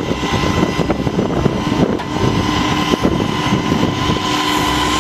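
Heavy rotator tow truck's diesel engine running under load as its boom hoists, a dense rumble with a thin steady whine that comes in about two seconds in.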